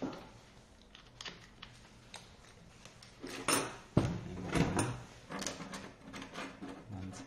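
Electric scooter hub-motor wheel with its tire being handled and set down on a table: a few light clicks, then louder knocks and a dull thump about four seconds in, followed by rubbing and clunks as it is moved.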